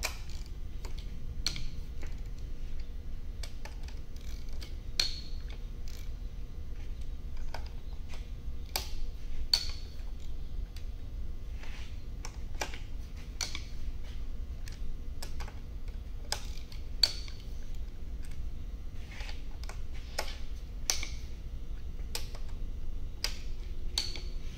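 Ratchet wrench on a long extension clicking as it loosens a jet ski engine's cylinder head bolts. The clicks come in irregular runs, with a sharper metallic click every couple of seconds.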